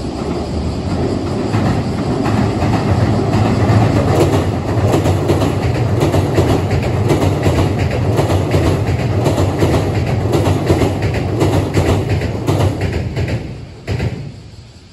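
Hankyu 1000 series eight-car electric train crossing a steel girder railway bridge at speed, with a low rumble and a rapid, repeated clatter of wheels over rail joints. The sound fades away over the last couple of seconds as the train clears the bridge.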